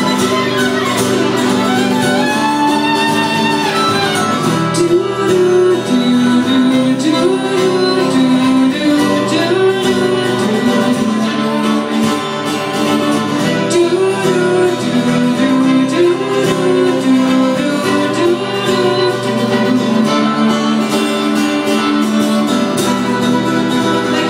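Live fiddle and strummed acoustic guitar playing together, with a woman singing.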